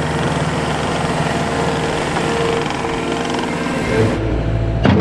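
JCB compact track loader running under load as it pushes dirt, its engine noise steady with a thin whine over it. About four seconds in the sound shifts to a deeper, lower engine note.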